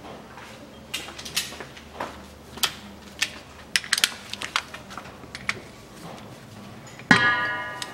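Metal hand tools clicking and tapping irregularly while working at a car's rear differential plugs. Near the end a sudden loud metallic ring, like a wrench striking metal, sounds and fades.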